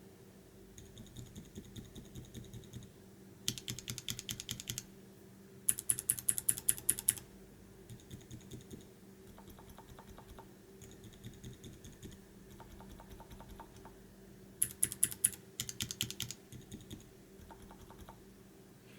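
Silent mechanical keyboard switches (Aliaz and Cherry MX Silent Red) pressed in quick runs of several keystrokes, about six a second. Some runs are louder and sharper clacks, others soft, dull taps.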